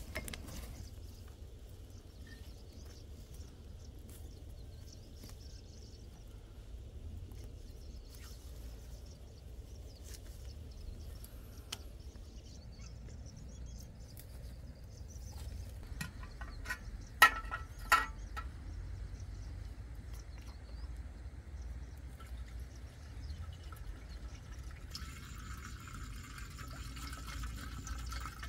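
A steady low outdoor rumble with two sharp clicks a little past halfway. Near the end comes the splashing gurgle of fuel poured from a plastic bottle into a small water pump engine's fuel tank.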